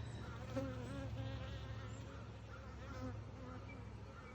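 Honeybees buzzing around an opened hive: a steady hum, with single bees droning past close by, their pitch sliding up and down.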